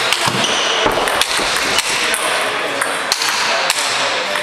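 A table tennis ball clicking back and forth off hardbats (pimpled rubber with no sponge) and the table during a rally: a string of sharp knocks, a few a second, at uneven spacing.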